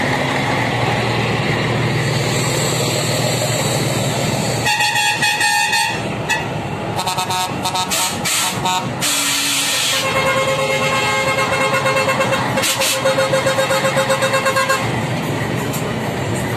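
Scania 113 trucks' 11-litre straight-six diesel engines running, then a series of truck horn toots and pulsing tones from about five seconds in.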